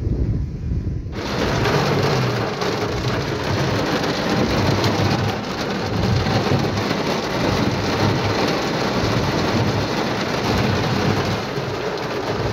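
Heavy rain drumming on a car's roof and windshield, heard from inside the car during a thunderstorm downpour, setting in abruptly about a second in and then running as a dense, steady hiss.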